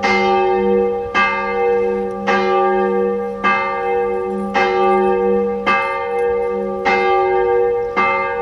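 Church bell in the detached bell tower of Østerlars round church tolling steadily, struck about once a second, eight strokes in all. Each stroke rings on into the next over a steady low hum.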